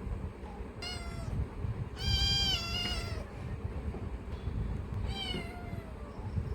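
A domestic cat meowing three times: a short meow about a second in, a longer, louder one about two seconds in that falls in pitch at its end, and a falling meow near the end, over a low steady rumble.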